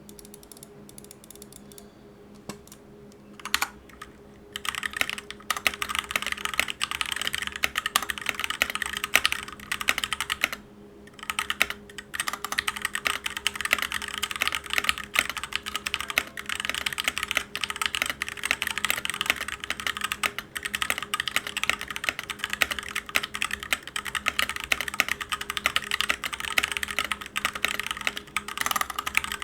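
Typing on a Dierya DK61SE 60% mechanical keyboard with TMKB Brown tactile switches and plate-mounted stabilizers. A few scattered keystrokes at first, then fast continuous typing from about four seconds in, with a brief pause near the middle.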